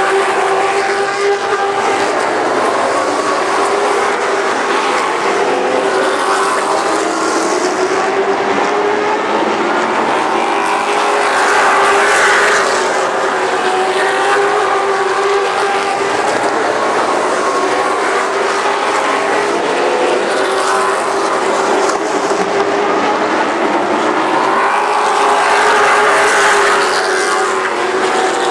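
A pack of late model stock cars' V8 engines running at racing speed, a steady engine note over tyre and wind noise. The sound swells as cars pass close, about twelve seconds in and again near the end.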